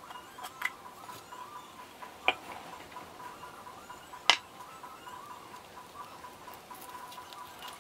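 Handling of an empty steel bread tin and the buns it held: a small click, then two sharp knocks about two and four seconds in, the second the loudest, as the can is set down on the table. Near the end, light paper crinkling as the paper baking cup is peeled from a bun.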